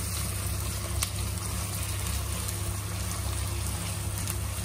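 Sliced onions and green chillies sizzling steadily as they fry in hot oil over a high flame in a nonstick pan, stirred with a steel spoon that clicks faintly against the pan a couple of times.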